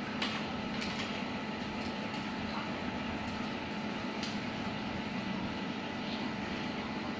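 Beef sizzling on a tabletop grill plate, a steady hiss over a low hum, with a few sharp clicks of metal tongs against the grill.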